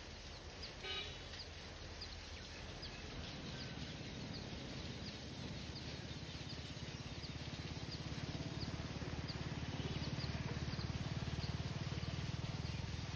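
Outdoor ambience: short high chirps, typical of a bird, repeating about once a second, with a brief call about a second in, over a low steady rumble that grows louder after a few seconds.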